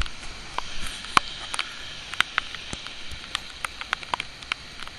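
Heavy rain falling on a wet street: a steady hiss with irregular sharp ticks of drops, a few a second.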